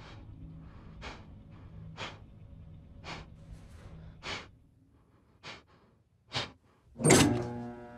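A man breathing hard in short, sharp breaths about once a second. About seven seconds in comes a loud sudden hit, followed by a steady ringing hum.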